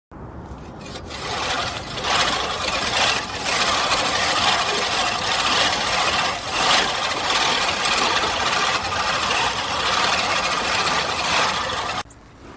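Push reel mower's spinning blades cutting grass: a steady mechanical whirring noise that builds over the first two seconds and cuts off suddenly near the end.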